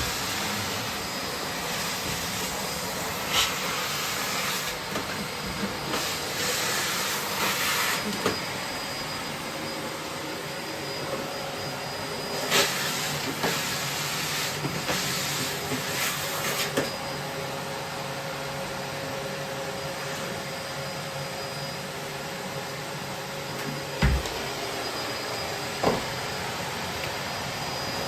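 Bosch BGS21X320 bagless vacuum cleaner running steadily, with several surges of louder hiss in the first half. A single thump near the end.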